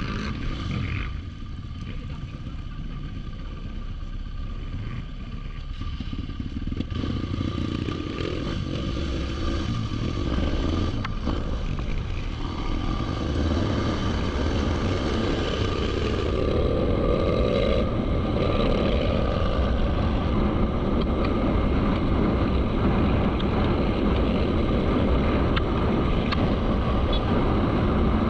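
Motorcycle running steadily while being ridden, growing gradually louder through the second half.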